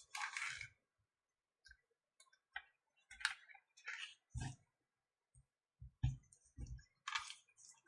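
Plastic casing of an Alcatel Pixi 3 tablet being pried open: scattered clicks, scrapes and a few dull knocks as its tight retaining clips resist.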